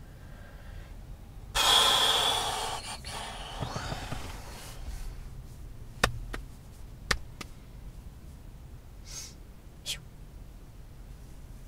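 A person sighs heavily: one long, breathy exhale about a second and a half in that fades over a couple of seconds. A few light clicks follow later.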